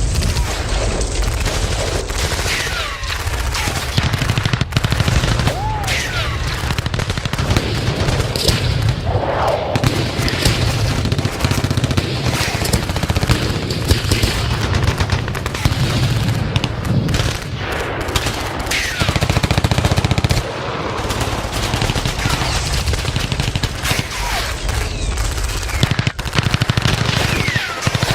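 Battle sound effect of continuous, dense machine-gun and rifle fire, with overlapping volleys of rapid shots throughout. Now and then a brief falling whine cuts through.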